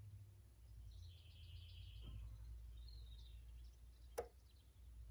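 Near silence: a faint low hum with a few faint bird chirps, and a single sharp click about four seconds in.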